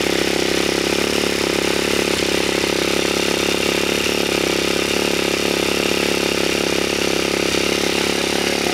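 High-compression 23 bhp Charger 4V engine of a Monkey bike running at a steady speed, without revving up or down.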